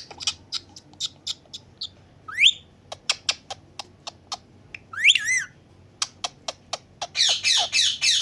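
Indian ringneck parakeet calling: a run of short, sharp chirps, a rising whistle about two and a half seconds in, and a wavering call around five seconds. From about seven seconds on it breaks into rapid squawking.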